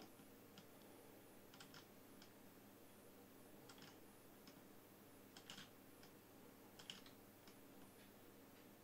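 Near silence: room tone with faint, irregular clicks of a computer mouse and keyboard.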